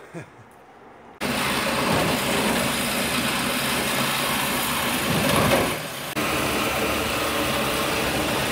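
Loud power tool working on the car's exhaust underneath it. It starts suddenly about a second in, cuts out briefly around six seconds, then runs again.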